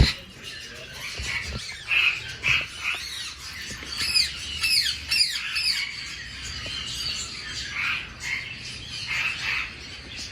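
A flock of caged birds squawking and chirping, many short calls overlapping, with a run of quick falling calls about four seconds in.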